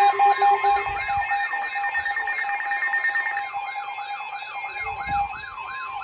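Several weather alert radios sounding their alarms together as a severe thunderstorm warning comes in: fast repeating rising-and-falling siren warbles over steady alert tones. One steady tone stops about a second in and another partway through, leaving mostly the warbles near the end.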